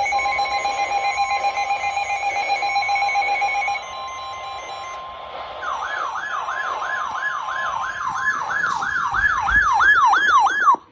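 Electronic alarm tones: a pulsing beep over a steady high tone, then an electronic siren from about six seconds in, sweeping up and down nearly three times a second. It cuts off suddenly near the end.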